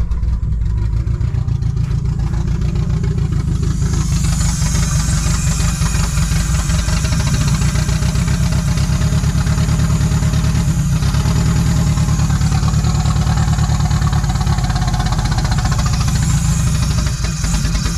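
Renault Espace four-cylinder engine, turbocharged and fed by a carburettor, catching and running steadily at a fast idle on its first start after a rebuild. It still needs adjusting: the owner traces its lean running to a big air leak from two brake-servo hoses left unconnected.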